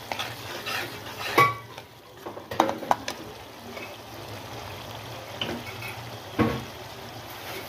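A steel spatula stirs and scrapes through a thick masala gravy simmering and sizzling in a kadai. The spatula knocks sharply against the pan a few times: about a second and a half in, twice near three seconds, and once more after six seconds. The gravy is being simmered so the raw tomato and spices cook through.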